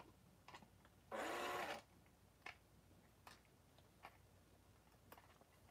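A cordless drill-driver runs in one short burst, under a second long, about a second in. Faint scattered clicks around it.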